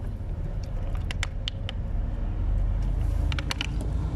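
Low steady rumble with several sharp clicks and crackles from a plastic squeeze bottle of dye being handled and squeezed, in two clusters, about a second in and again near the end.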